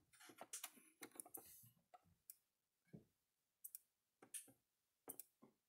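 Near silence with faint, irregular clicks and ticks, from handling a Gallagher S200 solar fence energizer and turning its mode dial.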